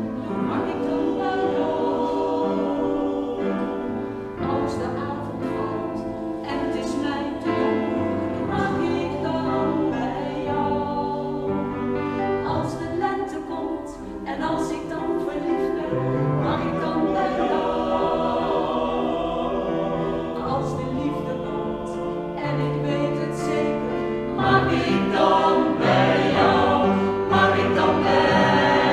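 Small mixed choir of men and women singing a song together in harmony, growing louder over the last few seconds.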